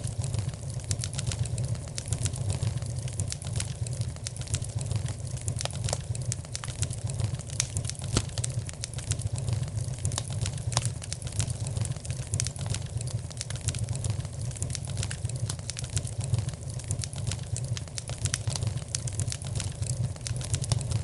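Wood fire crackling: many irregular sharp pops and snaps over a steady low rumble.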